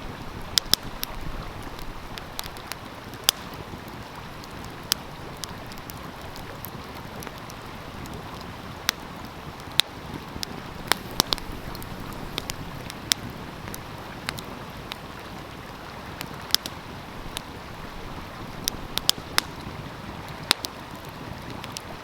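Wood fire crackling, with irregular sharp pops, over the steady rush of a flowing stream.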